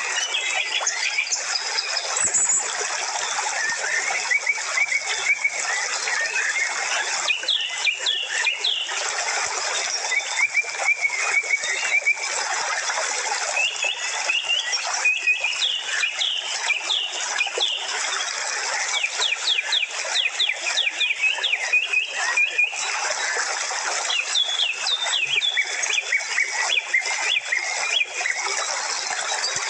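Many birds chirping and twittering without pause, over a steady hiss of outdoor nature ambience.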